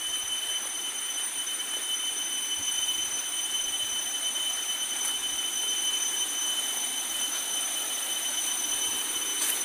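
Steady rush of river water flowing past, an even hiss with no rhythm or breaks, with a few thin, steady high-pitched tones above it.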